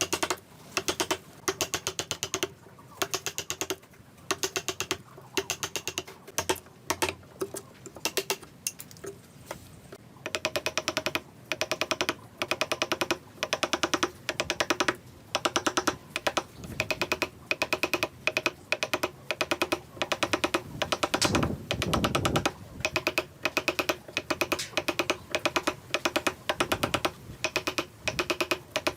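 Wood being worked by hand: rapid bursts of sharp clicking, about two bursts a second, with a woody ring. The bursts come denser and louder from about ten seconds in.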